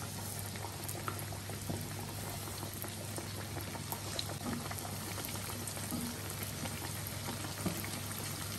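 Hot cooking oil bubbling and sizzling steadily around cireng (tapioca dough patties) deep-frying in a wok, with small scattered crackles and pops.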